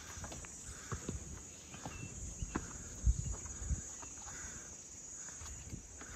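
A hiker's footsteps on a mountain path: irregular soft thumps, a few heavier ones around the middle, over a steady high chirring of insects.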